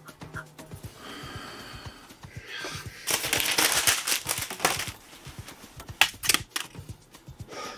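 A sheet of paper pulled off a clipboard and crumpled by hand: a loud rustling burst lasting about two seconds. About a second after it come a few sharp clicks.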